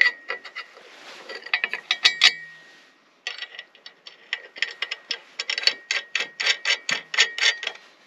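Ratchet wrench clicking in quick strokes as it tightens the bolts holding a plate-steel tab to a sawmill bed bunk, with a faint metallic ring. The clicks pause briefly about three seconds in, then run on at about four a second.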